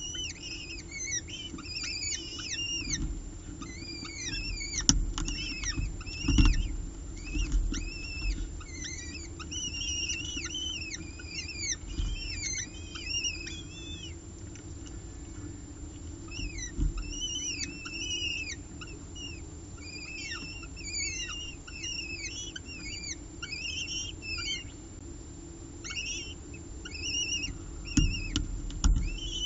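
Downy peregrine falcon chicks (eyases) begging as they are fed, a rapid run of short high peeps, each rising and then falling, with a couple of short lulls. A few dull knocks come in about five to six seconds in and again near the end.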